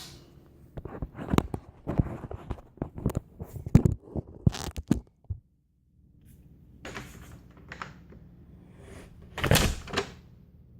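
Knocks, clicks and clatter of a camera being handled and set down, then a single heavy thud near the end, like a door shutting.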